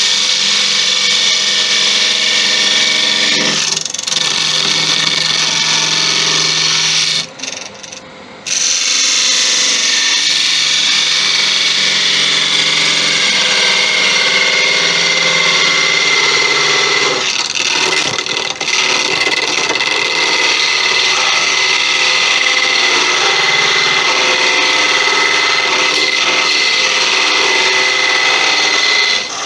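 A Laguna 1836 wood lathe is running while a narrow parting tool cuts into the base of a spinning spalted beech vase, giving a steady scraping hiss over the lathe's hum. The sound drops briefly about seven seconds in. A steady high-pitched tone joins from about thirteen seconds in.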